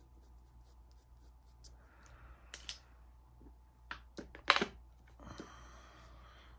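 A few sharp clicks and taps from art tools and small magnets being handled and set down on a desk, the loudest about four and a half seconds in, with a brief soft rustle after it.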